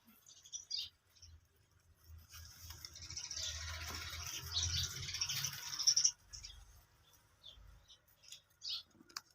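Small birds chirping in short high notes, with a few seconds of louder rustling noise in the middle.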